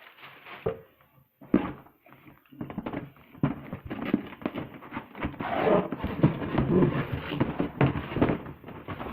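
Cardboard shipping box and packing material being handled and opened: irregular rustling, crinkling and sharp knocks. These are sparse at first and get thicker and louder over the second half.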